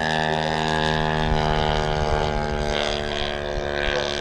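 DLE 85cc two-stroke gas engine of a giant-scale RC biplane running steadily in flight, with its propeller making a continuous drone at a nearly constant pitch.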